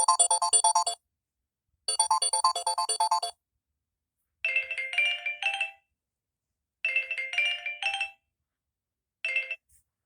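Samsung Galaxy Tab A8 ringtones playing: two bursts of rapid repeated electronic notes about two seconds apart, then two short three-note phrases, with silent gaps between, and a brief single note near the end.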